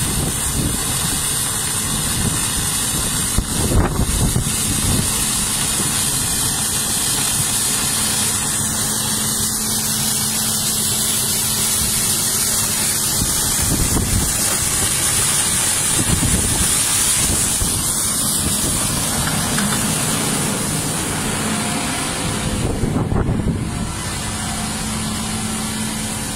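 Tractor engine running while its side-mounted rotary road brush spins against the curb and asphalt, sweeping away soil and grass: a steady mechanical noise with a high hiss.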